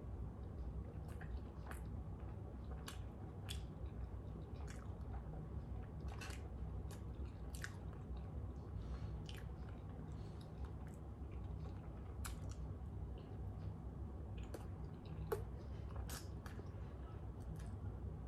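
A person chewing and biting a chili-topped hot dog in a bun: wet mouth clicks scattered throughout, over a steady low room hum.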